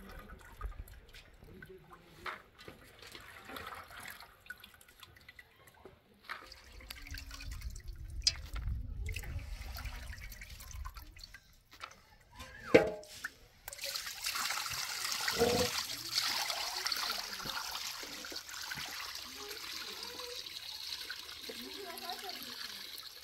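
Water dripping and splashing in a metal pot as hands stir and scoop small wild pistachio fruits to wash them. From a little over halfway through, a steady stream of running water takes over.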